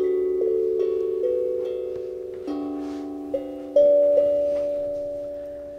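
Steel tongue drum played slowly: about eight single notes struck one after another, each left ringing so they overlap, the loudest about two and a half and four seconds in, then the ringing fades away over the last couple of seconds.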